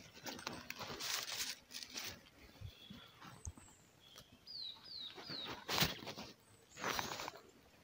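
Close rustling and handling noise as fishing line and hooks are worked over dry reed stalks, with a louder scrape when a finger brushes the camera a little before six seconds in. A small bird calls in the background: three quick descending chirps about halfway through and a couple of short high notes around them.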